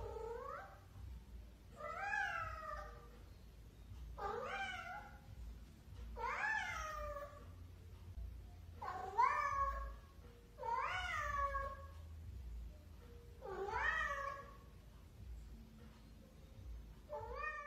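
Bengal cat meowing over and over, about eight drawn-out meows roughly every two seconds, each rising and then falling in pitch.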